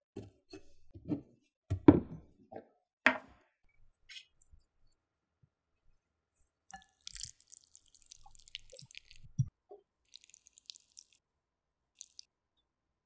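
Wet, sticky handling sounds of sauce-coated braised oxtail: a few soft knocks in the first few seconds, then a stretch of fine crackling and squishing as the tender meat is pulled and snipped with kitchen scissors.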